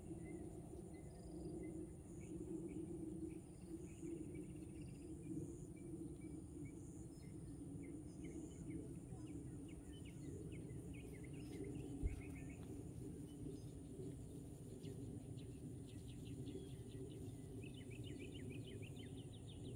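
Outdoor ambience: scattered bird chirps over a steady high insect drone and a low steady hum, with a single low thump about twelve seconds in. Near the end a bird gives a quick run of repeated chirps.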